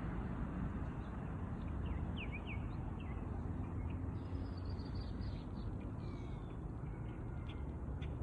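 Scattered short, faint bird calls over a steady low background rumble.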